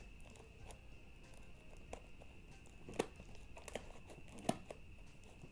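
Faint handling noises of a parcel being opened: a few sharp clicks about three, three and a half and four and a half seconds in, with light rustling, over a steady faint high whine.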